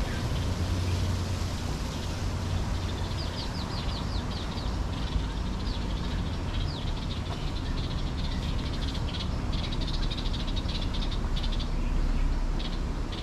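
A small animal calling outdoors: quick high chirps, starting about three seconds in with a fast run and then coming in scattered clusters, over a steady low rumble.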